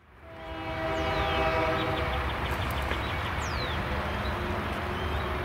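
An approaching diesel freight locomotive sounds its air horn in one long multi-note chord that stops about four seconds in. The engine's low rumble goes on underneath throughout, with a few bird chirps above it.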